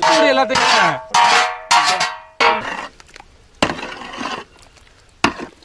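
Long metal spatula stirring and scraping through a large metal pot of beaten egg and flaked fish. For the first couple of seconds the scrapes squeal and ring, then come a few softer stirring strokes and a sharp knock near the end.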